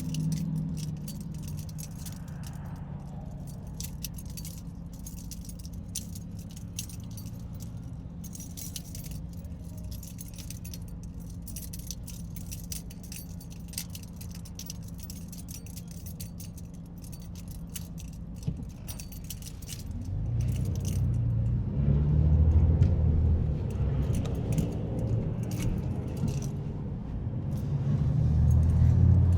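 Car interior on the move: a steady engine and road hum with a light, constant jingling of loose metal, like keys, from vibration. About two-thirds of the way in, the engine gets louder and its pitch shifts as the car picks up speed, and it swells again near the end.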